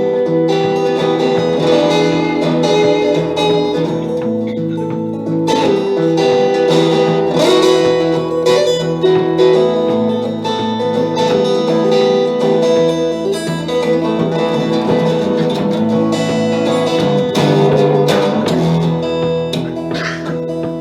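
Live instrumental passage of a folk-pop song, with guitar prominent among sustained notes and no singing.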